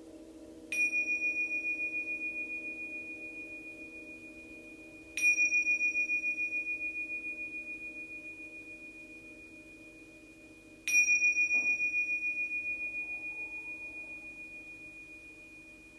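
Tingsha, a pair of small Tibetan hand cymbals, struck together three times about five seconds apart. Each strike gives a bright high ring that pulses and slowly fades, over a low steady hum.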